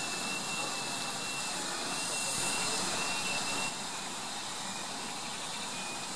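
Steady hiss of steam escaping from around a steam locomotive's cylinders, with a thin high whistle running through it. The hiss drops suddenly in loudness about three and a half seconds in, then carries on more quietly.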